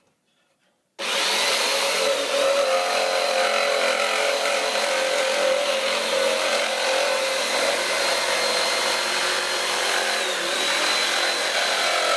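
Electric jigsaw starting up suddenly about a second in and cutting through a piece of wood held in a vise. It runs with a steady high whine that sags briefly twice under load.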